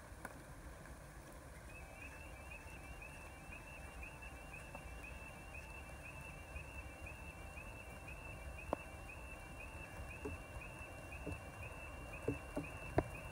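Quiet outdoor background with a faint low rush. From about two seconds in, a faint high chirp repeats evenly several times a second. A few sharp taps come in the last few seconds, the loudest just before the end.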